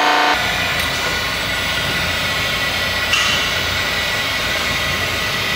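Robotic weld-bead milling head cutting a steel pipe seam, a pitched machining whine that stops abruptly in the first half second. A steady mechanical rumble with a thin high whine follows, with a brief louder scrape about three seconds in.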